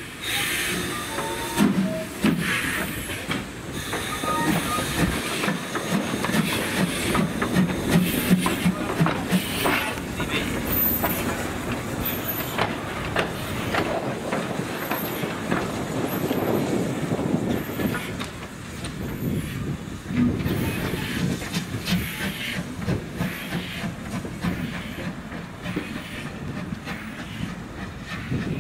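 GWR 1500 class 0-6-0 pannier tank steam locomotive No. 1501 moving off and running past, with a rhythmic exhaust chuff, hissing steam and wheels clanking on the rails.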